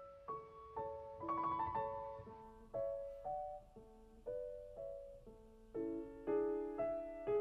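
Slow solo piano music: single notes that ring and fade, about two a second, moving into fuller chords about six seconds in.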